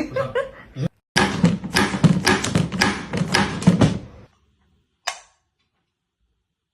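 A rapid, irregular run of taps and clatters lasting about three seconds, followed by a single sharp click.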